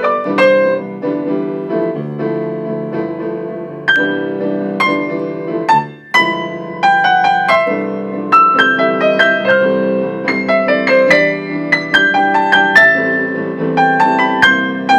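Piano played four-hands, a lively piece of quick, separate notes; it breaks off briefly about six seconds in, then picks up again with faster, denser notes.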